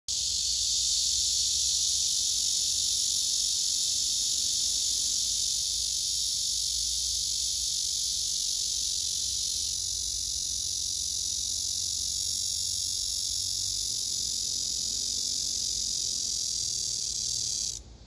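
Cicadas singing in a steady, high-pitched buzzing chorus that cuts off abruptly just before the end.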